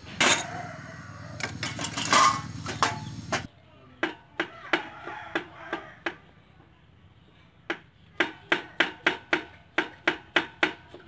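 Knife chopping on a wooden cutting board: sharp separate strokes, spaced at first, then a quicker run of about three a second from about eight seconds in. The first three seconds hold a louder stretch of rustling noise and knocks.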